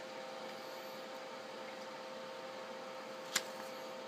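Steady background hum with a faint held tone in it, and one sharp click about three and a half seconds in.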